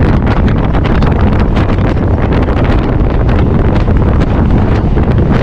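Wind rushing over the microphone at the open doorway of a moving electric suburban local train, over the steady running noise of the train on the track.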